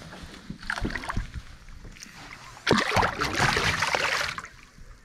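Water splashing as a large yellowbelly (golden perch) is released over the side of a boat: brief splashes about a second in, then a loud stretch of splashing from near three seconds that dies away after about a second and a half, as the fish kicks off.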